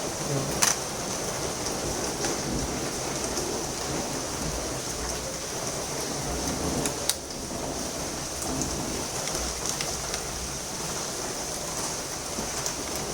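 Steady rain-like hiss, with a few sharp clicks of a screwdriver and screws against the laptop's plastic base, the clearest about half a second and about seven seconds in.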